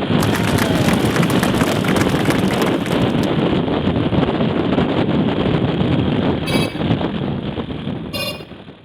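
Wind buffeting the microphone over a Honda CD90's small engine while the motorcycle is ridden, a dense steady rush that fades out near the end.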